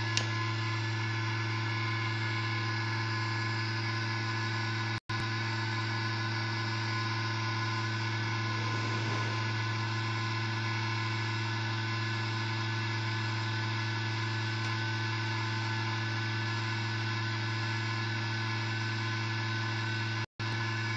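Hot air rework station blowing steadily onto a surface-mount tuner IC to melt its solder for removal: a steady low hum with an even rush of air. The sound cuts out for an instant twice, about five seconds in and near the end.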